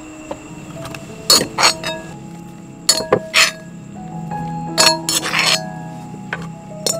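Several sharp clinks of kitchen bowls and utensils in three short clusters, over soft background music.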